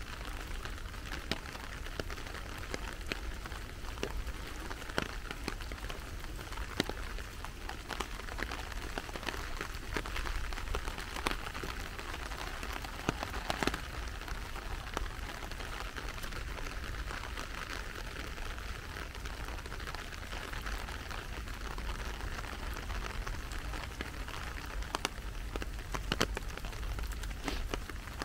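Steady rain falling, with many separate drops landing close by as sharp little ticks over an even hiss, and a low rumble underneath.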